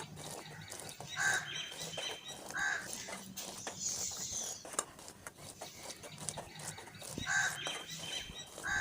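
Birds calling: short repeated calls, two near the start about a second and a half apart and two more near the end.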